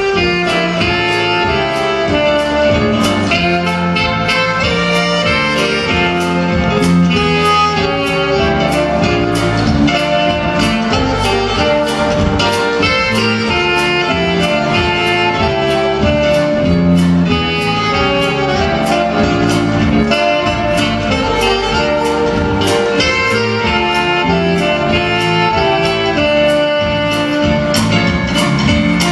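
Lively instrumental music with a steady, quick beat.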